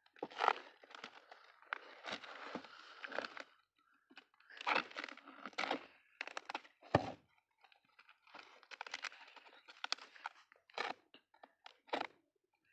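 A small knife cutting open a cardboard parcel wrapped in plastic film and packing tape, the plastic crinkling and crackling as it is slit and pulled, in irregular bursts with short pauses.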